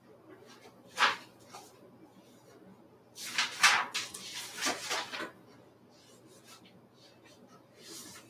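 A few short knocks and scraping clicks of something being handled: one about a second in, and a busier run of them from about three to five seconds in.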